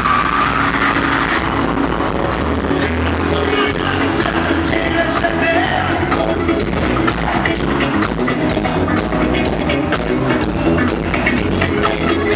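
Live gospel band music played loud through a concert PA, with a steady drum beat and a singer's voice over it.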